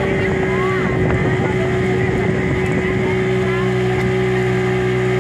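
Small outrigger boat's engine running steadily under way, a constant pitched hum with no change in speed.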